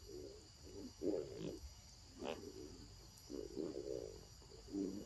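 A macaque making a series of about five short, low grunts over a few seconds, the loudest about a second in. A faint steady high whine sits underneath.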